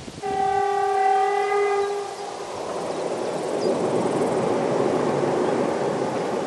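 Diesel locomotive horn of a 2TE10M sounding one steady blast of about two seconds. It is followed by the steady noise of the approaching freight train, which swells slightly.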